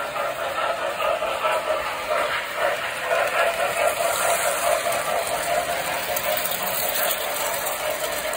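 Tinplate toy trains running on three-rail tubular track: a steady rolling clatter of metal wheels on the rails with a continuous mechanical whir.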